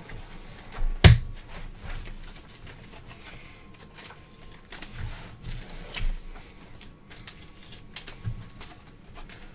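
Trading cards being handled and set down onto piles on a table: scattered light taps and clicks, with one louder knock about a second in.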